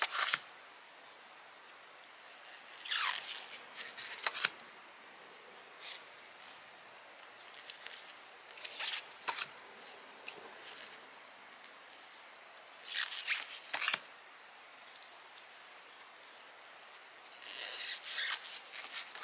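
Stiff printed art cards sliding against one another as they are flipped through one at a time in gloved hands: short scraping swishes every few seconds, a couple of them ending in a sharp tap.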